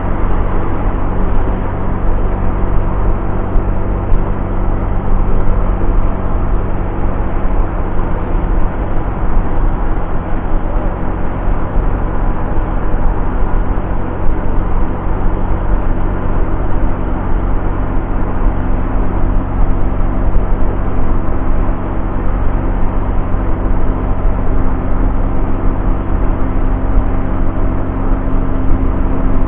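Honda Vario scooter riding at a steady cruising speed: the engine's even drone under the rush of wind and road noise on the camera microphone.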